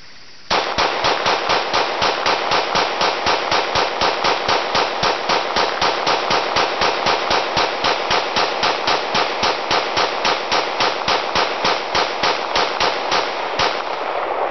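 Glock 17 9mm pistol fired semi-automatically from a 50-round drum magazine as fast as the trigger can be pulled: a long, evenly paced string of shots at about four a second, each with a short echo. It begins about half a second in and stops near the end, when the drum has run empty.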